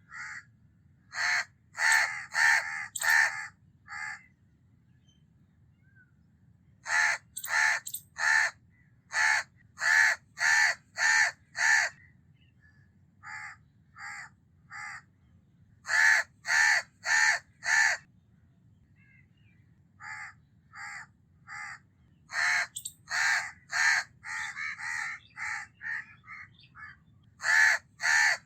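House crow (Corvus splendens) cawing: runs of three to eight short caws at about two a second, with pauses of one to three seconds between runs. A few runs are fainter than the rest.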